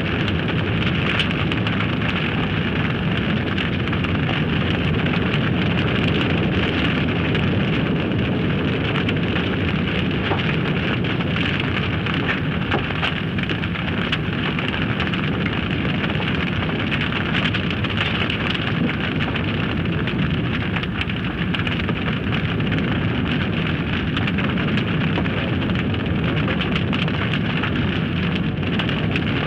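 Forest fire burning steadily: a continuous rush of flame with dense, unbroken crackling.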